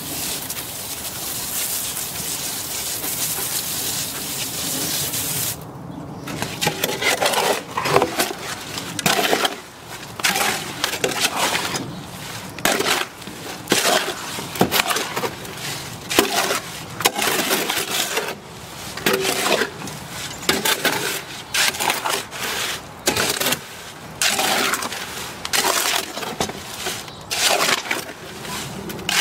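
Garden hose spraying water into dry concrete mix in a steel wheelbarrow, a steady hiss that stops about five and a half seconds in. Then a square shovel scrapes and churns the wet concrete against the wheelbarrow tray in repeated gritty strokes, about one a second.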